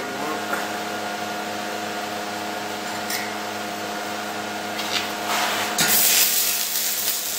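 Stick-welding arc from an Esab 215ic with a 3/32 electrode, a steady crackling hiss. It gets louder and brighter about five seconds in.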